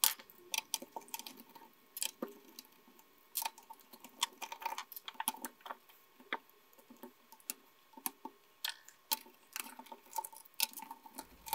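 Scattered light clicks and ticks of a screwdriver backing screws out of a plastic radio case, with small knocks from the case being handled.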